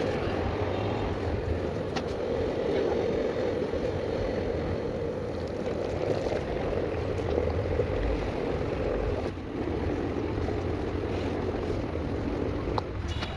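Electric kettle heating water: a steady rushing hiss with a low hum, easing slightly about nine seconds in, and a small click near the end.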